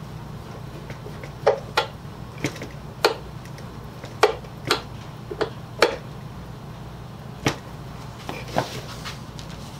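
About ten sharp, irregular clicks and taps from a hand screwdriver working small brass screws into pallet-wood boards, over a steady low hum.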